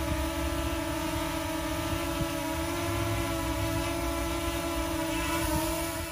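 DJI Mini 2 drone hovering close by, its four small propellers giving a steady high-pitched buzz, with a small shift in pitch partway through as it holds position.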